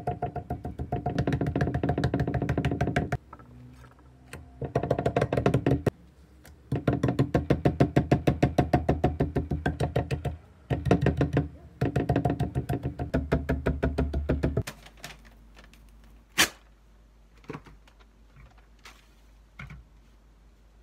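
Kitchen knife chopping rapidly against a thick wooden cutting board through napa cabbage ribs, in runs of fast, even knocks with a ringing tone and short pauses between. Near the end the chopping stops and a few light clicks and one sharp knock follow as utensils are set down.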